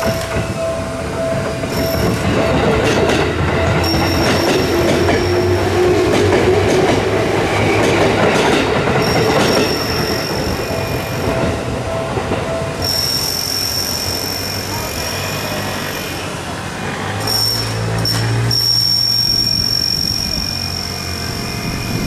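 An electric train runs through a Japanese level crossing while the crossing's warning bell rings. The train's rumble and wheel noise are loudest over the first half and fade after about thirteen seconds, and steady ringing tones carry on afterwards.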